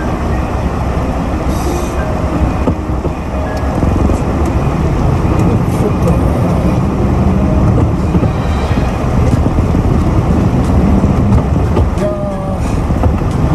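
Truck driving at speed, heard from inside its cab: steady engine and road rumble.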